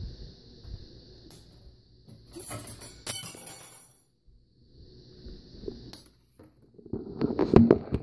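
Handling noise from a phone camera carried through a kitchen: a rustling scrape about halfway, then several sharp knocks and clatter near the end as it is set down on the counter.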